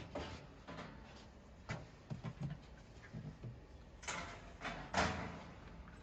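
Faint handling noises as power cables are connected to the crimping machine: light knocks and rustles, with two louder rubbing sounds about four and five seconds in.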